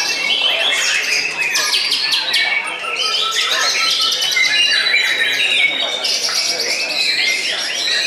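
White-rumped shama singing a continuous, varied run of whistles, trills and chattering notes, with other caged songbirds singing at the same time.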